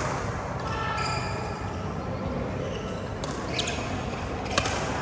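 Badminton rally: several sharp racket-on-shuttlecock hits, the loudest near the end, with short squeaks of shoes on the court floor over the steady background noise of the hall.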